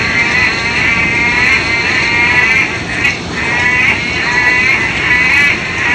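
Loud chorus of frogs calling, many overlapping pulsed calls running together, with brief lulls about three seconds in and near the end.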